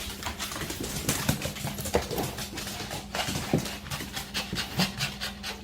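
A dog panting, in short uneven breaths.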